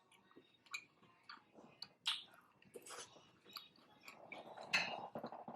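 Close-miked chewing of food: irregular wet mouth clicks and smacks, growing louder and denser for about a second near the end.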